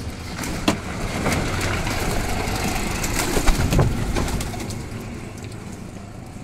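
Domestic pigeons flapping and fluttering their wings, with sharp wing claps, loudest a little past the middle. A low pigeon coo comes near the middle.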